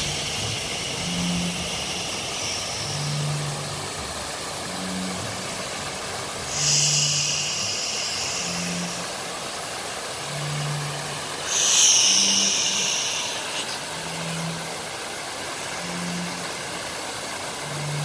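Steady rushing of an illuminated rock waterfall into its pool. Over it, a slow, low pulsing tone about once every two seconds, and three long high-pitched calls of about two seconds each: near the start, about a third of the way in, and the loudest about two-thirds of the way in.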